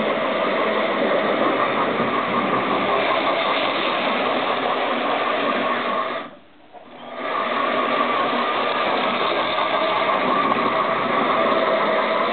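Model steam locomotive for Hornby Dublo three-rail track running on test, its electric motor and wheels making a steady mechanical whirr with a held tone. The sound nearly cuts out for about a second some six seconds in, then picks up again.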